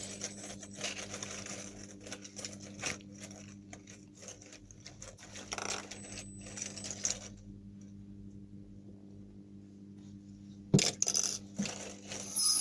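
Small objects being handled, with light clicking and rustling, then several sharper knocks near the end, over a low steady hum.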